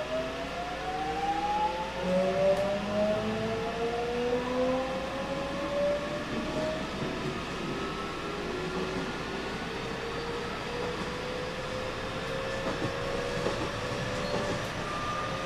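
JR West 207 series 1000 subseries electric train accelerating: its Toshiba VVVF inverter and traction motors whine in several tones that climb together in pitch, the rise slowing and levelling off in the second half, over the running rumble of the train.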